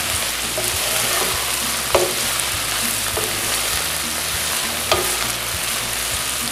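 Sliced okra sizzling steadily in mustard oil in a pan as it is stirred with a wooden spatula, which knocks sharply against the pan twice, about two and five seconds in.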